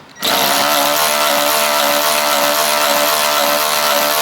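Handheld power tool motor running steadily at full speed, starting about a quarter second in.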